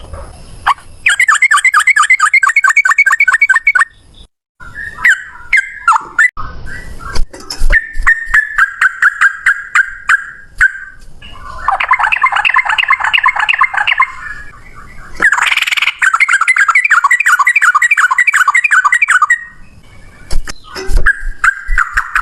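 Yellow-vented bulbuls (trucukan) singing in long, fast chattering trills, in several loud bouts with short gaps, as males do when contesting. A few sharp clicks come between the first bouts.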